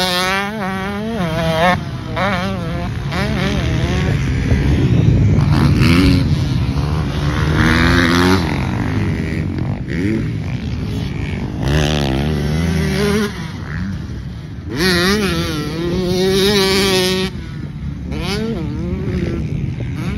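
Two-stroke Honda CR motocross bike ridden hard around a dirt track. The engine revs up and falls back again and again as the throttle is opened and shut, and it gets louder when the bike comes close.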